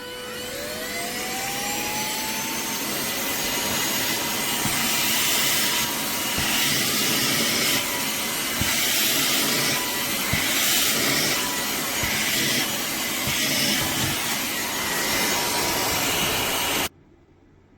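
Cordless handheld car vacuum switched on, its motor spinning up with a rising whine, then running steadily with a loud rush of suction and a few small clicks, before it is switched off and stops suddenly near the end.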